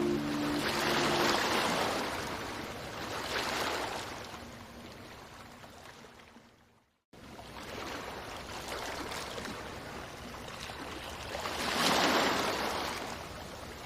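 Ocean waves washing in, swelling and ebbing several times. The sound fades out to a moment of silence about halfway through, then fades back in.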